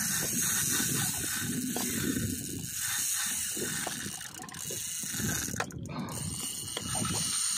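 Fishing reel clicking and whirring in a rapid ratchet while a hooked fish is played on a bent rod.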